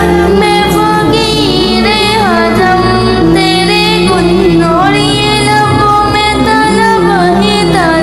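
A devotional naat sung in a high voice, with an ornamented melody that slides between notes over a sustained backing.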